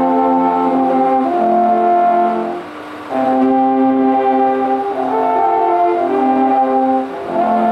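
An ensemble of alphorns playing sustained chords in harmony, with a short break between phrases a little under three seconds in and another near the end.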